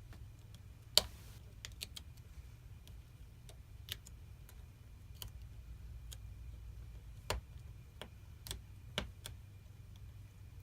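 Irregular light clicks and taps of small plastic and metal phone parts being handled and pressed into place while a Samsung Galaxy S9 is reassembled, with a sharper click about a second in, over a low steady hum.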